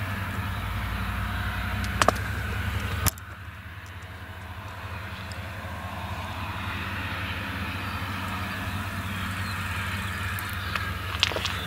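Claas Jaguar self-propelled forage harvester and the tractors hauling silage wagons beside it, a steady low engine drone while chopping whole-crop silage. About three seconds in the sound drops suddenly to a quieter drone, just after a couple of sharp clicks.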